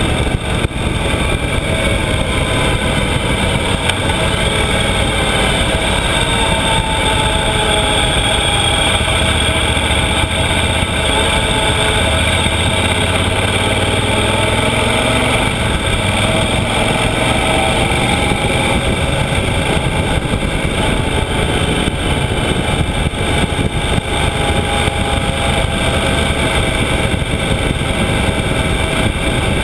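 Yamaha XT1200Z Super Ténéré parallel-twin engine running under way on an open road, its pitch rising and falling slowly as the revs change, under steady wind rush on the microphone.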